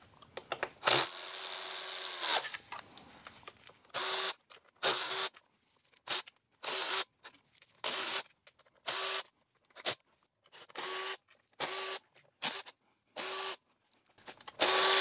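Small cordless impact tool spinning out the transmission oil pan bolts: one longer run about a second in, then about a dozen short bursts, one bolt after another.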